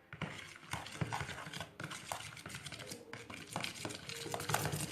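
A spoon stirring a thick glue-and-paint slime mixture in a pot, with irregular clicks and scrapes of the spoon against the pot.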